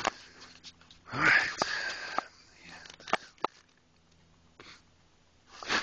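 A loud breath, about a second long, about a second in, then a few sharp clicks of the phone being handled; another breath near the end.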